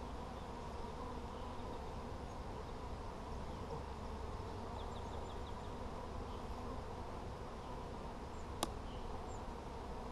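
Honeybees buzzing steadily around an opened hive as its frames are worked, with one sharp click about eight and a half seconds in.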